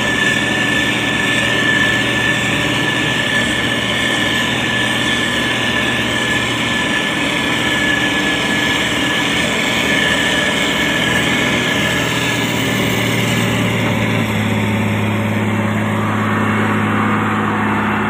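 Diesel engine of a heavy road-building machine running steadily, with a thin high whine over it that fades out about two-thirds of the way through. Soon after, the engine note deepens and strengthens slightly.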